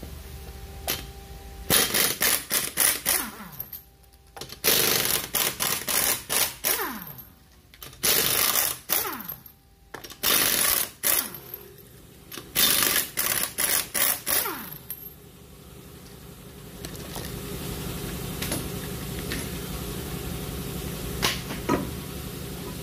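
Impact wrench hammering the wheel's 21 mm lug nuts loose in about five short bursts, most ending in a falling whine as the tool spins down. Near the end there are a couple of knocks as the wheel is pulled off the hub.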